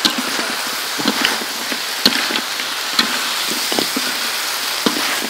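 Chicken and green onions sizzling in a metal wok while a metal spatula stirs them, scraping and knocking against the pan about once a second.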